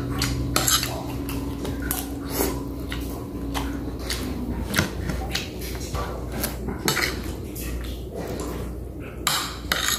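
Metal spoon and fork clinking and scraping against a plate during a meal, in sharp, irregular clicks every second or so.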